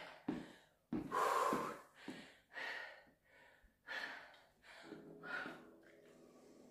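A woman panting hard after exercise: about six heavy, gasping breaths, the loudest about a second in, growing softer toward the end.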